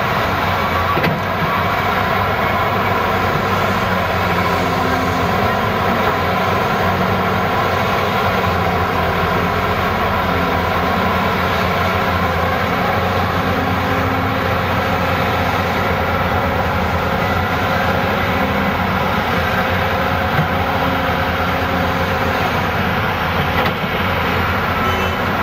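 Caterpillar 375 excavator's diesel engine running steadily under load as it digs and swings to load a dump truck.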